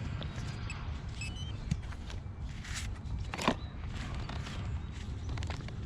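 XP Deus 2 metal detector in full tones giving scattered short beeps of varying pitch and a quick rising chirp about halfway through, the unstable chatter it makes over highly mineralised clay soil. Under it runs a low, steady rumble.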